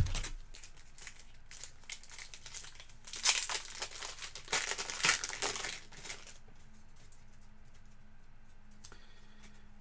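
A knock right at the start, then a trading card pack wrapper crinkling and tearing as it is opened, in several bursts over the first six seconds.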